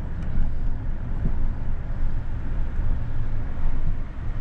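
Steady low rumble of a vehicle driving along a road, heard from inside the cabin: engine and tyre noise.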